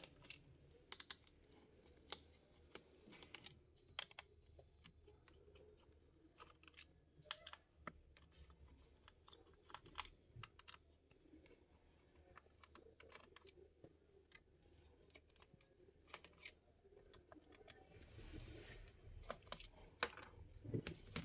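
Near silence broken by scattered faint clicks and taps: a small screwdriver working the battery screws on the underside of a laptop.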